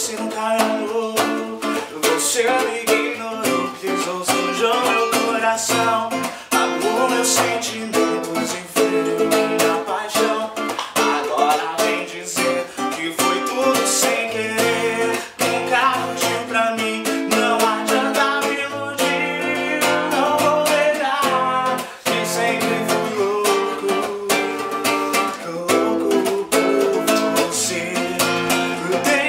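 Instrumental music of plucked and strummed acoustic string instruments, with a quick steady strumming rhythm under a played melody.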